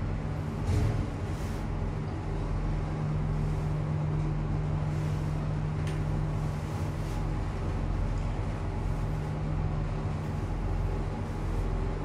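Otis passenger lift car travelling upward: a steady low hum and rumble of the moving car, with a brief thump about a second in.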